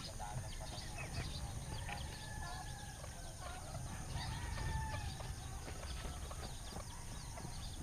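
Birds calling, with one longer drawn-out call a couple of seconds in, over a steady low rumble.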